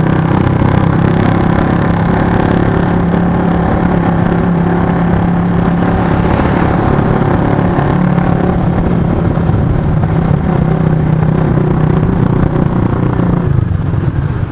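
Honda Vario 155 scooter's single-cylinder engine running steadily at cruising speed under a constant rush of wind and road noise. Near the end the sound eases off as the scooter slows.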